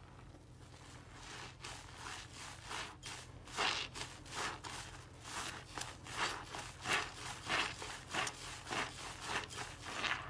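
Slime being worked by hand in repeated strokes, about two a second, each a short sticky rubbing sound; faint at first, then more regular.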